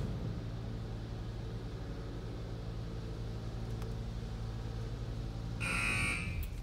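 Steady low hum of machinery heard from inside a car's cabin in a Ryko Softgloss Maxx 5 in-bay car wash, with the car's engine idling. A brief hiss comes in about a second before the end.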